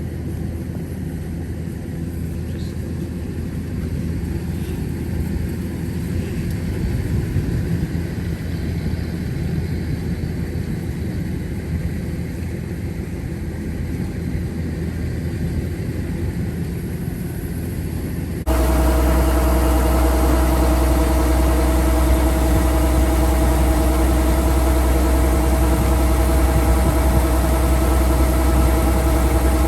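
Kubota DC-105X combine harvester's diesel engine running. About two-thirds of the way through, the sound cuts abruptly to a louder, steadier engine drone with a strong low hum.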